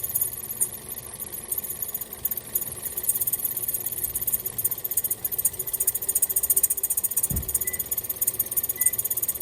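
Car engine running with its accessory drive belt turning, the headlights switched on to load the alternator as a check for belt noise. A short low thump about seven seconds in.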